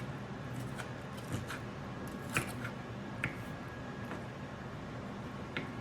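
A few light clicks and taps from handling in a kitchen, scattered over a steady low hum.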